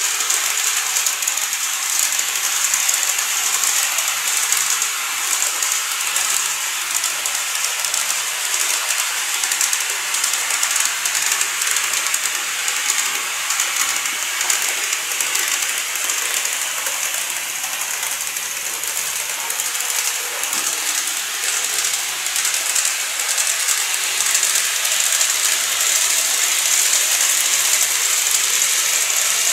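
N-gauge TOMIX model electric train (223 series 5000 Marine Liner set) running along the track: a steady, high-pitched rattling hiss of small wheels and motor, with fine rapid clicking.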